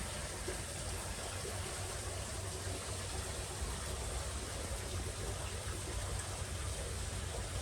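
Steady background noise: an even hiss over a low rumble, with no distinct sounds standing out.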